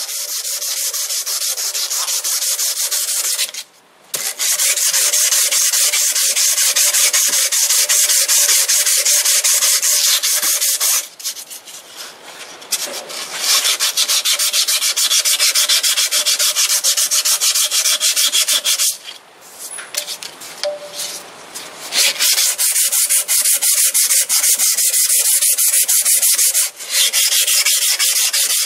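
A hand file rasping against a metal part as it spins in a 1946 Logan Model 200 lathe, over the lathe's steady hum. The rasping breaks off briefly four times as the file is lifted.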